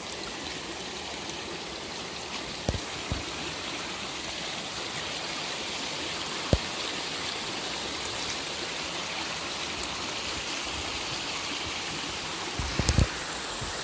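Flowing water rushing steadily, with a few short dull thumps, several of them together near the end.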